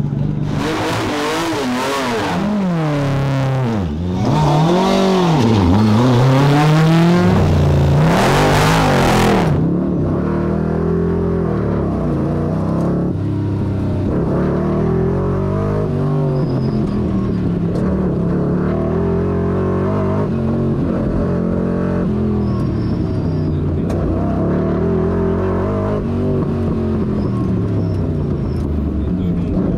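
Sports car engine accelerating hard and shifting through the gears, its pitch repeatedly climbing and dropping, heard clear and bright. From about ten seconds in it becomes the 1963 Shelby Cobra 289's V8 heard from inside the open cockpit, duller and lower, still rising and falling with throttle and gear changes.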